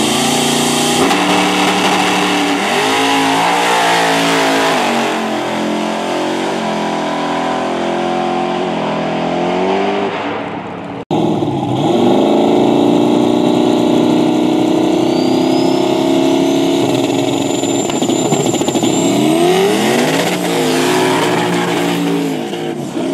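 Drag race cars' engines at wide-open throttle down the track, the engine note climbing and then dropping at each gear shift. The sound cuts out abruptly about halfway through and another run starts. A thin high whine rises through that second run.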